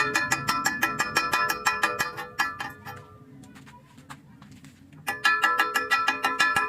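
Background music with a fast, even plucked beat. It fades out a little over two seconds in, leaving a quieter gap, then comes back abruptly about five seconds in.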